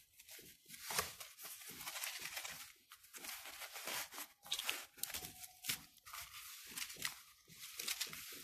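Soft rustling and small scratchy clicks of hands opening a small black pouch and drawing out a lavalier microphone and its coiled cable.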